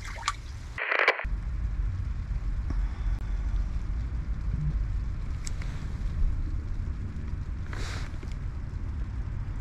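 Wind buffeting the microphone outdoors as a steady low rumble. A short burst of noise comes about a second in, and a brief hiss comes near eight seconds.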